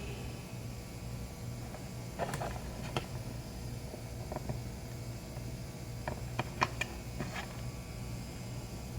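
Small clicks and light scrapes from handling tools and parts while repairing a laptop charger, in two short clusters about two and six seconds in, over a steady low hum.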